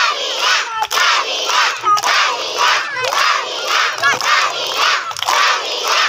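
A crowd of young children shouting and cheering together in a steady chant, about two shouts a second.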